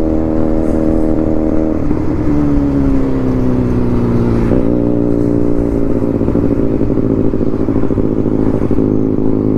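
Motorcycle engine running hard at speed. Its pitch drops about two seconds in and sinks slowly, then rises sharply about four and a half seconds in and holds steady.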